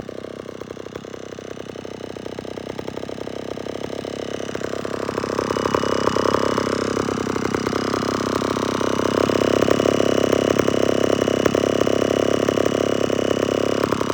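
Vintage Homelite 775G two-stroke chainsaw engine running steadily, growing louder about five seconds in and staying at the higher level.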